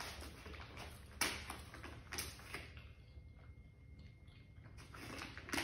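Quiet pause with a low steady hum and a few brief clicks and rustles, about a second in, two seconds in and near the end, like small handling noises.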